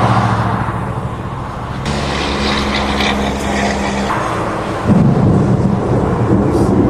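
Road traffic passing: steady engine hum with swells of tyre and engine noise as vehicles go by.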